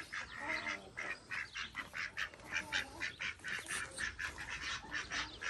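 Domestic goose and ducks calling softly: a quick run of short, quiet calls, about four a second.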